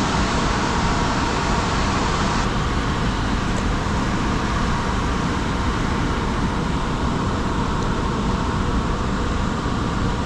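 Fast-moving creek water rushing steadily over rocks, an even hiss with no let-up; the very top of the hiss eases a little about two seconds in.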